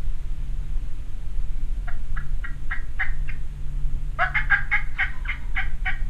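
Turkey calling: a series of short yelping notes begins about two seconds in, followed near the end by a louder, faster run of notes. A steady low rumble runs underneath.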